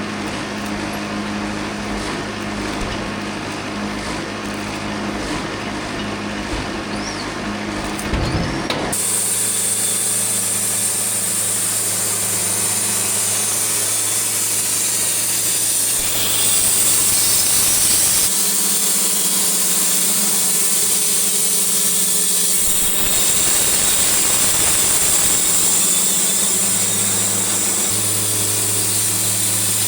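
Portable band sawmill running with a Silver Tip Turbo 7 band blade. Its engine hums steadily at first, and about nine seconds in the blade bites into the log and a loud high hiss of cutting takes over and runs on steadily.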